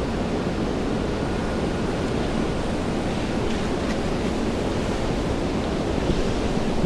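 Steady rain on wet city streets: an even, unbroken hiss with a low rumble underneath.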